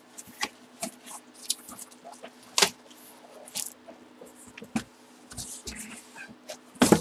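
Cardboard boxes being handled: scattered rustles, scrapes and light knocks of cardboard moved about by hand, with a sharper knock a little under three seconds in and a louder clatter near the end, over a faint steady hum.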